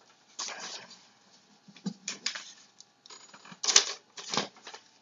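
Sheets of paper rustling and sliding as they are handled, in several crisp bursts, the loudest a little before four seconds in.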